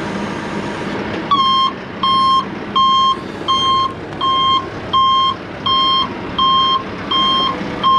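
Vehicle backup alarm beeping at an even pace, about three beeps every two seconds, starting a little over a second in, over the steady noise of a running engine.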